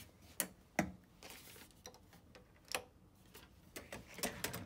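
Sharp metallic clicks and knocks from a hotel room door's metal swing-bar guard and latch being handled as the door is opened. The two loudest come about half a second apart near the start, and a quicker run of clicks follows near the end.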